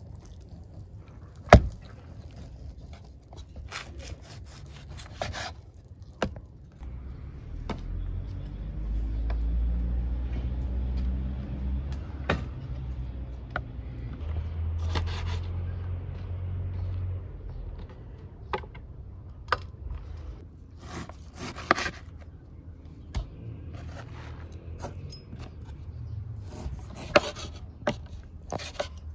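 Kitchen knife cutting and tapping on a wooden chopping board and raw beef pieces being handled in a steel bowl: scattered knocks and scrapes, the sharpest about a second and a half in. A low rumble runs through the middle.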